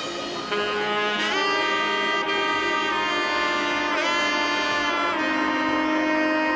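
Background music: a melody of long held notes, with a wavering bend in pitch about four seconds in.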